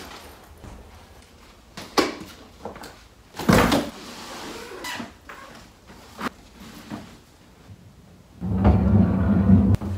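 Bags being handled and set down on a bench: a string of knocks and thumps, the loudest about three and a half seconds in. A loud low rumble lasts over a second near the end.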